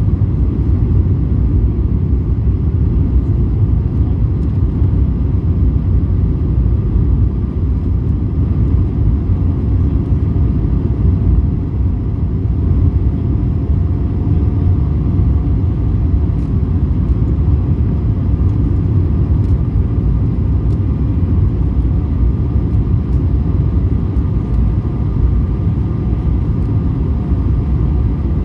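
Steady low rumble of engine and airflow noise inside the cabin of an Airbus A220 descending on approach to land, with a faint steady whine above it.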